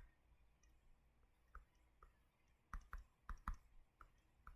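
Near silence with about eight faint, short clicks at uneven intervals, most of them bunched in the second half.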